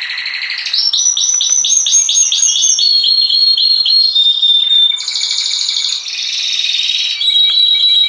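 Domestic canary singing a continuous song. It moves through buzzy rolls, a run of fast repeated chirps, and a clear held whistle about four seconds in, changing phrase every second or two.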